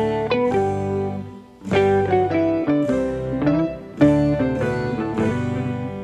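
Background music led by plucked guitar-like notes over a bass line, with a brief break about a second and a half in.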